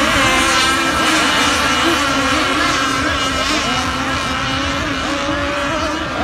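Several radio-controlled racing boats running their engines flat out in a race. The pitches of the different engines overlap and rise and fall as the boats speed along and turn.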